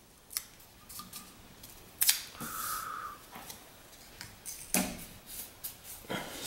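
A sheet of paper being pressed and smoothed by hand against a metal machine face and taped in place: a scatter of short crisp paper crinkles and clicks, with a longer rasp about two to three seconds in.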